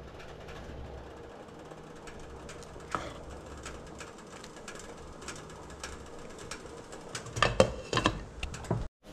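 Pot of soup cooking on the stove: light, irregular clicks and ticks over a low steady hum, with a cluster of louder clicks about three-quarters of the way through.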